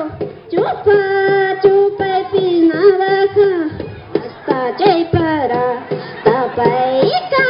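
High-pitched voices singing a Santiago festival song in the Andean style, with long held notes that slide down at the ends of phrases. A steady beat runs underneath.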